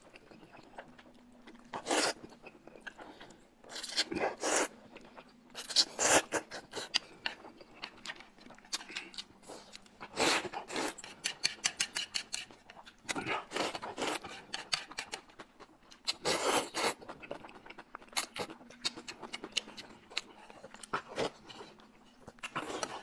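Close-miked eating: noodles slurped in repeated short, loud bursts, with chewing and small mouth clicks in between.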